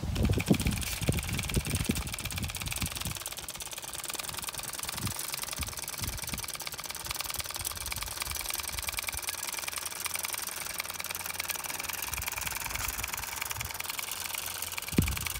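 Homemade two-cylinder solenoid engine running, its plungers clicking in a fast, even chatter as the flywheel spins. A few low thumps in the first three seconds and another near the end.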